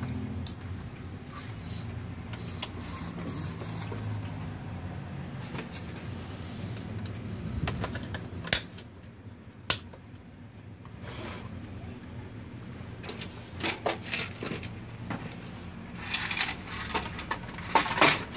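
Scattered sharp clicks and knocks of plastic printer parts being fitted and handled, over a low hum. Near the end comes a denser, louder clatter as the opened printer body is lifted and shifted.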